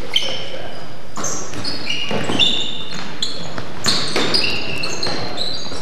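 Basketball sneakers squeaking in short, high-pitched chirps on a hardwood gym floor during play, with a basketball bouncing a few times.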